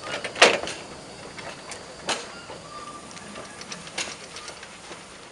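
Narrow-gauge steam tank locomotive rolling slowly over the yard track, giving a few sharp, irregular metallic clanks. The loudest comes about half a second in, with more near two and four seconds.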